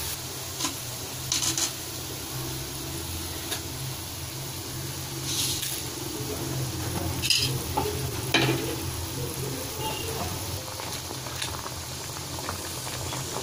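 Thin egg-and-tomato broth bubbling and sizzling in a metal wok, over a steady low hum. A few light knocks and clinks are scattered through it.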